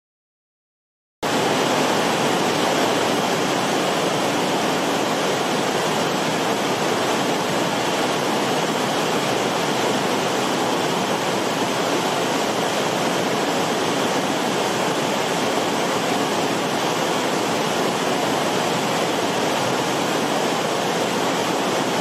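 Steady rush of fast water running over rocks in a mountain stream, starting abruptly about a second in.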